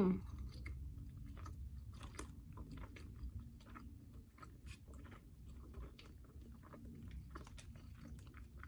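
A person chewing a toasted sub sandwich close to the microphone: many small wet mouth clicks and smacks.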